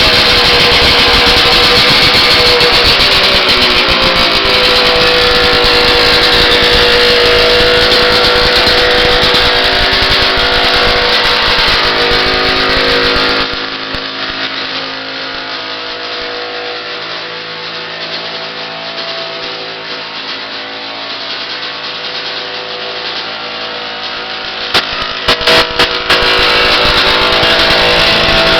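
A 1971 Ski-Doo 645 Blizzard snowmobile's two-stroke engine running loud and fast, heard through a poor camera microphone, its pitch wavering. About halfway through it drops to a quieter, lower run. A few sharp knocks come near the end, just before it picks up loud again.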